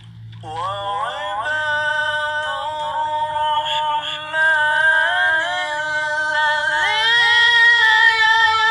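A man's voice chanting long, held, ornamented notes in the style of Quranic tilawah recitation, a phone recording with an added echo effect. The pitch steps up about seven seconds in.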